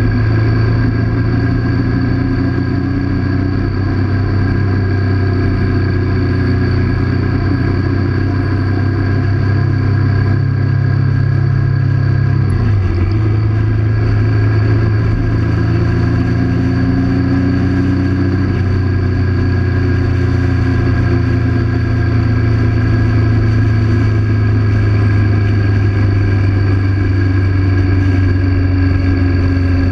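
1998 Triumph Sprint 900's three-cylinder engine running at a steady cruise under the rider. The engine note dips briefly about halfway through, then picks up again.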